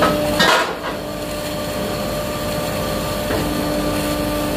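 Hydraulic tyre-removal machine's motor-driven pump humming steadily, with a loud sharp crack about half a second in as the ram forces the alloy wheel out of the tyre, breaking the wheel's lip, and a smaller knock near the end.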